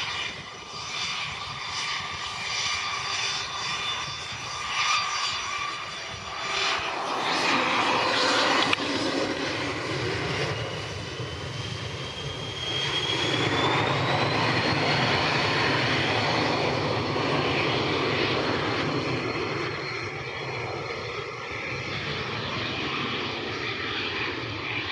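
Twin Williams FJ44 turbofans of a Cessna Citation CJ2+ business jet running on the ground. A whine rises in pitch a little before halfway as the engines spool up toward takeoff power, and they then run steadily louder.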